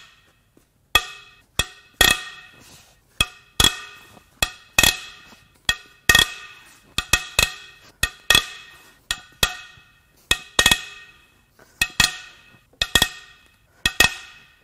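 Toyota 1FZ-FE cylinder head bolts being loosened one after another with a long breaker bar and socket: a string of sharp metallic cracks and clinks, about one to two a second, some in quick pairs, each ringing briefly.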